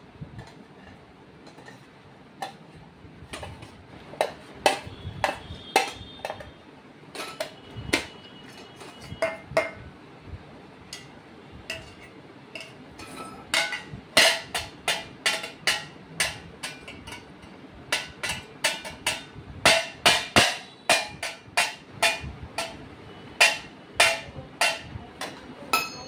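A toddler striking a stainless steel plate and bowls with a steel spoon: irregular metallic clinks, each with a short ring. They are sparse at first and come faster and louder from about halfway through.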